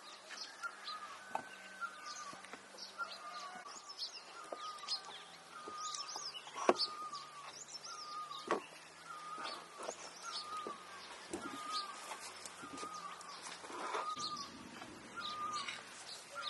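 Birds calling: one repeats a short call about once a second, with quicker high chirps from others above it. Now and then a knife knocks through potato onto a wooden cutting board and pieces are set into a clay dish, a few sharp knocks, the loudest a little before the middle.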